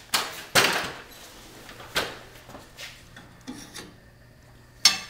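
Hand work on garage door extension spring hardware: a few short scrapes and rubs, with a sharp knock near the end.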